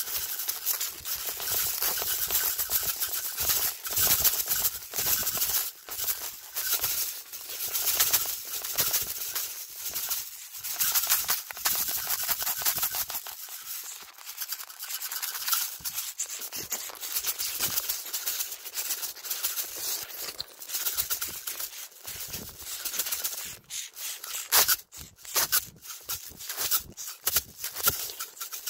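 Dry uncooked long-grain rice being shaken in a clear cup, the grains rattling against its walls in a dense, uneven rattle that surges and dips as it is shaken.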